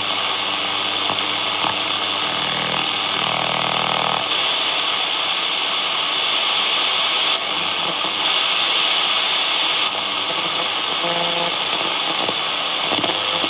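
A National Panasonic GX300 (RF-888) radio's loudspeaker giving loud, steady hiss and static while tuned off a station, with faint tones and traces of signal coming and going.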